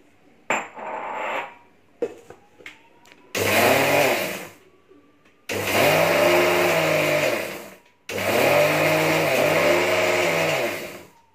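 Electric mixer grinder grinding dry poha (flattened rice) in a stainless steel jar in three short pulses for a coarse grind, the motor's pitch rising and falling within each run. A short rattle and a few clicks come before the first pulse.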